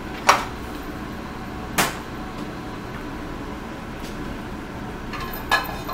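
A metal sauté pan knocking against the gas range's grate, three sharp clanks over the space of a few seconds, over steady kitchen background noise.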